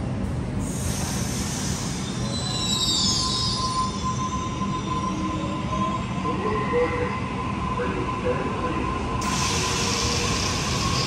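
Double-deck electric suburban train moving along the platform, with a steady rumble and a steady whine. High wheel squeals come briefly about two to four seconds in, and a louder rush of train noise starts near the end.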